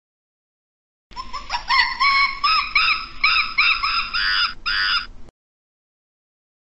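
A primate's call: a run of high whooping notes, each rising and falling in pitch, starting about a second in and cutting off suddenly after about four seconds.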